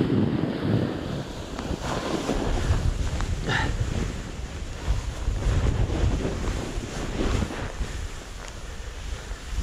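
Wind buffeting the microphone during a snowboard run, with a continuous rushing hiss of the board sliding through snow and heavy low rumble.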